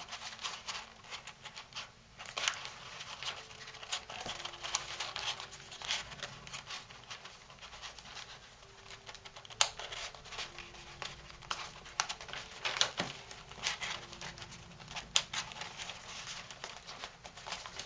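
Origami paper rustling and crinkling as hands bend a paper swivel and tuck its edges into the pockets of pleated paper cubes, with irregular crackles and a few sharper clicks.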